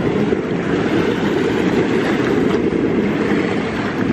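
Wind buffeting the microphone beside open harbor water: a steady rumble, mostly low in pitch, with the wash of small waves.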